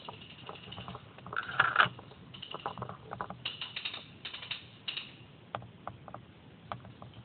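Paintball markers firing in quick runs of sharp pops, the loudest run about one and a half seconds in, more runs through the middle, then scattered single shots.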